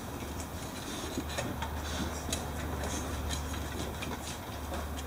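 Puppies' claws ticking and pattering on a wooden floor and threshold: scattered light clicks, over a low steady hum.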